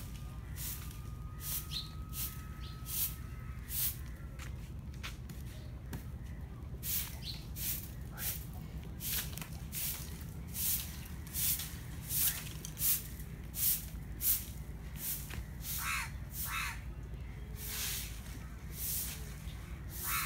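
Crows cawing over and over, short harsh calls coming about once or twice a second, over a steady low rumble.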